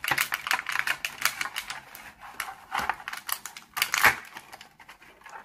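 Rapid plastic clicking and crackling as a clear plastic toy capsule is handled and pried open by hand, with a couple of louder clacks about three and four seconds in.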